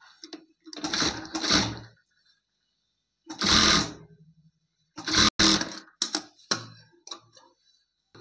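Electric sewing machine stitching a shoulder seam in three short runs of about a second each, followed by a few shorter stops and starts.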